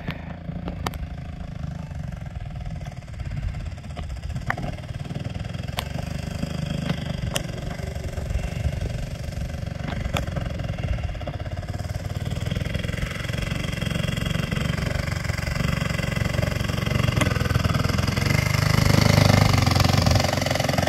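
Engine of a quarter-scale Spitfire model airplane idling as the plane taxis back after landing. It grows steadily louder as the plane comes closer and is loudest shortly before the end.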